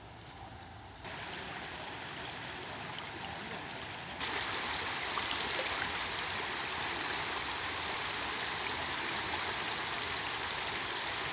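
Floodwater rushing fast over the edge of a flooded road, a steady rushing noise that jumps louder about four seconds in.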